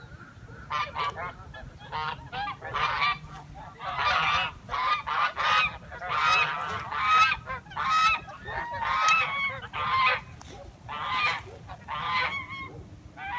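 Geese honking over and over, short pitched calls coming about one to two a second and sometimes overlapping.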